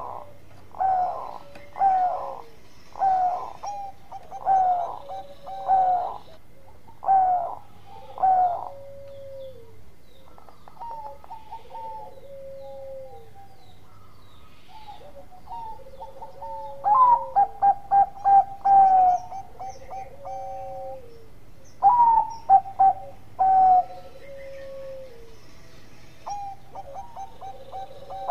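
Bangkok-type zebra dove (perkutut) singing its cooing song: a run of coos about one a second, softer calls in the middle, a quick stuttering run of short notes, then more coo phrases near the end.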